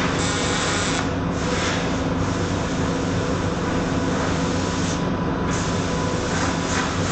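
TIG welding on pipe: a steady arc hiss over a constant electrical hum from the welding machine. The high hiss drops out briefly about a second in and again about five seconds in.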